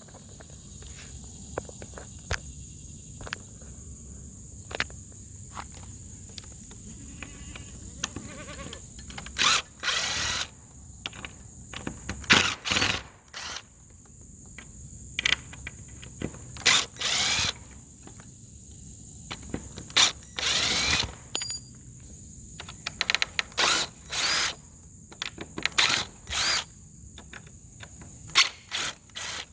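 Cordless screw gun running in repeated short bursts, some with a rising motor pitch, over a steady high-pitched buzz of insects.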